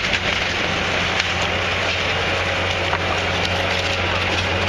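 Wood-framed house section being demolished: timber splintering and cracking, with scattered sharp snaps, over a steady low hum.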